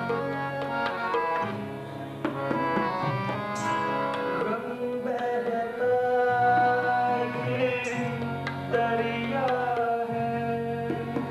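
A man singing long, gliding notes over a harmonium's sustained chords, with tabla strokes keeping time.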